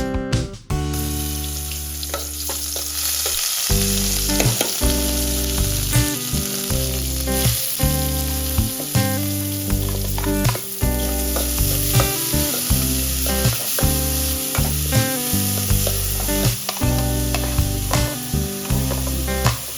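Food frying in hot oil in a pan, a steady sizzle, with frequent short clicks and knocks of a utensil against the pan as it is stirred.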